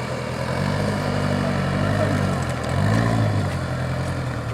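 Rock-crawling buggy's engine running under load, its revs rising about half a second in and surging again briefly around three seconds in.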